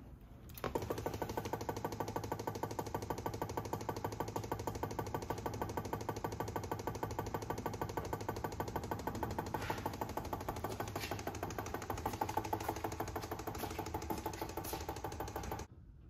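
Yamaha R1 inline-four being cranked on its electric starter, a steady rhythmic cranking for about fifteen seconds that never catches and stops suddenly near the end. This is a crank-no-start after an ECU flash, which the tuner puts down to the Yamaha immobilizer.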